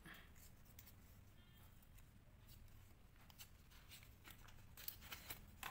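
Faint crinkling and small clicks of a protective wrap being peeled off a new GoPro Hero 10 Black camera by hand, with a few sharper crackles near the end.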